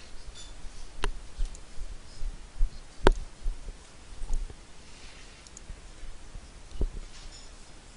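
A few sharp clicks with scattered low knocks between them; the loudest click comes about three seconds in, the others about a second in and near the end.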